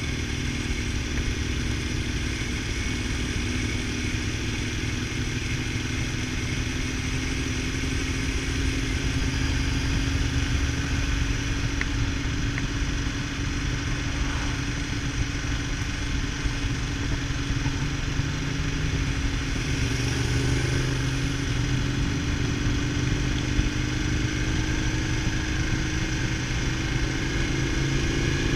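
Motorcycle engine running under way, its pitch rising slowly and steadily as the bike gathers speed, over constant wind and road noise.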